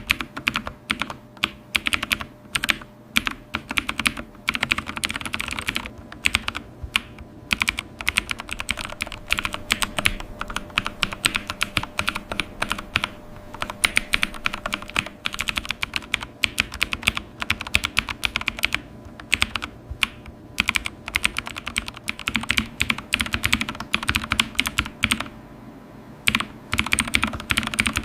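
Computer keyboard being typed on: rapid, continuous keystroke clicks, with a brief pause near the end.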